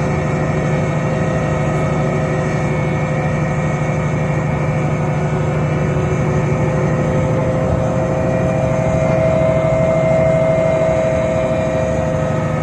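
Inside a Solaris Urbino 12 CNG city bus on the move: its Iveco Cursor 8 natural-gas inline-six engine runs with a steady low hum, driving through a Voith D854.5 automatic gearbox. From about eight seconds in, a whine grows louder and rises slightly in pitch, easing a little near the end.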